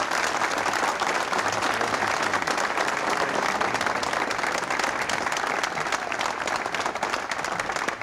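Crowd applauding: many people clapping steadily, dying down near the end.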